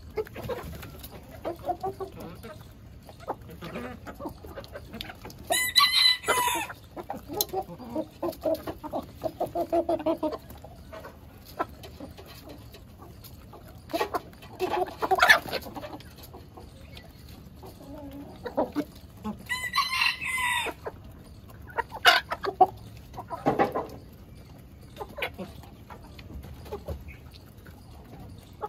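A flock of chickens clucking as they scratch and peck, broken twice by a longer, higher-pitched call of about a second.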